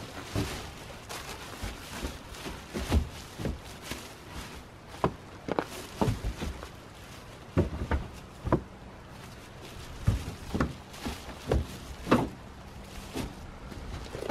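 Large plastic bags rustling and crinkling as bagged items, a tyre among them, are hauled out of a car trunk, with irregular knocks and thumps as they are set down and shifted.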